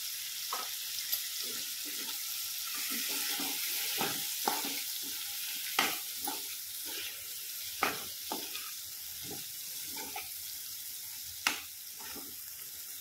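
Sliced vegetable pieces sizzling in hot oil in a kadhai while a steel spatula stirs them, with irregular scrapes and taps of the spatula against the pan; the sharpest taps come a little past halfway and near the end.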